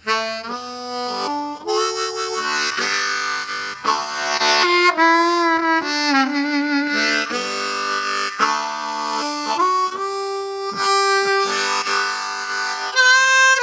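Seydel 1847 Lightning diatonic harmonica with stainless steel reeds played solo in a simple chord melody: several reeds sounding together in held chords and single notes, a few of them sliding in pitch.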